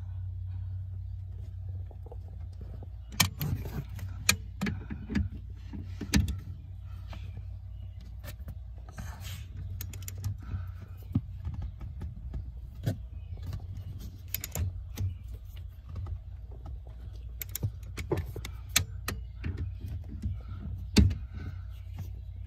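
Irregular clicks and metallic knocks of a ratcheting torque wrench being worked on the intermediate steering shaft's joint bolt, with clusters of clicks a few seconds in and again near the end. A steady low hum runs underneath.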